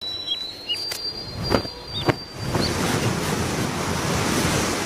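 A few short bird chirps in the first two seconds, then a steady rushing noise, like wind or surf, that fills the rest.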